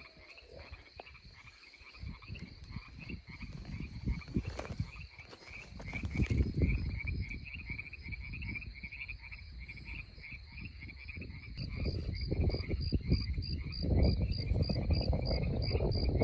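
A frog chorus calling in steady pulses, about four a second, with a steady high insect trill behind it. From about six seconds in, and loudest near the end, close rustling and handling noise as a hooked catfish is held and worked free of the line.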